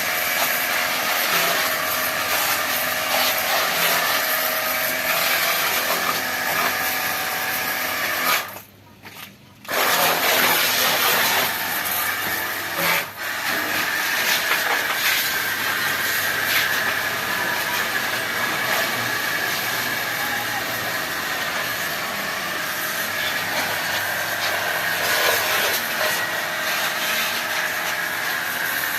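Portable electric jet cleaner (pressure washer) running, its motor whining steadily under the hiss of the water spray. It cuts out for about a second about nine seconds in, then runs again, with a brief dip a few seconds later.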